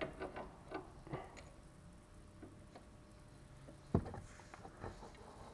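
Light clicks and taps of a wrench on the front stabilizer bar end link nut: a quick scattering in the first second or so, then one sharper metal knock about four seconds in and a few small ticks after it.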